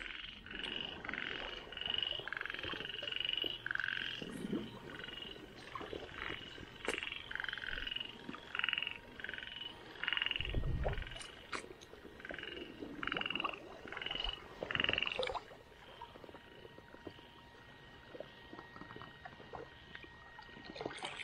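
Frogs croaking in a fast series of short, repeated calls, about two a second, that stop about fifteen seconds in. A brief low thump comes about ten and a half seconds in.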